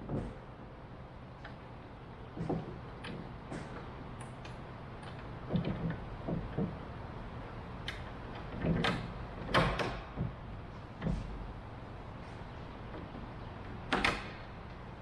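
Irregular knocks, clicks and clunks of hand work on wooden aircraft landing gear: a cordless drill set down on the plywood deck at the start, then parts knocked and shifted by hand while a bolt is worked into its bracket. The loudest knocks come about nine to ten seconds in and near the end.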